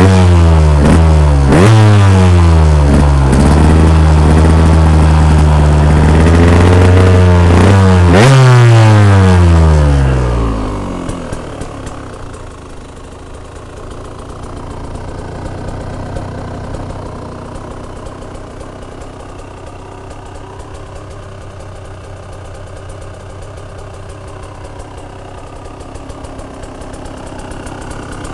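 2007 KTM 125 EXC's 125cc two-stroke single being revved: a few quick throttle blips and one longer held rev that rises and falls, then about ten seconds in it drops back to a much quieter, rattly idle that carries on.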